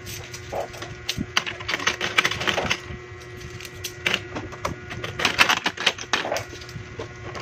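Metal coins clinking and clicking against each other and the wooden floor as they are counted and stacked by hand, in two busy flurries of small clicks.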